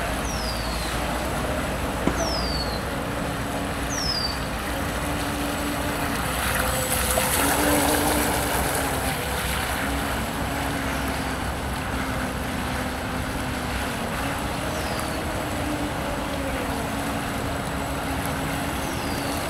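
Small RC hydrofoil boat's electric outrunner motor running steadily on a 2S LiPo, a low hum whose pitch shifts slightly with the throttle, over a steady hiss of water and wind.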